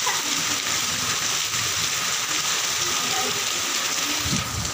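Heavy rain falling steadily on standing floodwater, a dense even hiss. A brief low rumble comes near the end.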